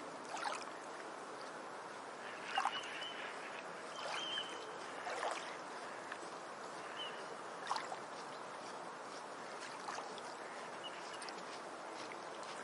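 Water sloshing and splashing in irregular bursts over a steady rush of water, with a few short, high bird calls.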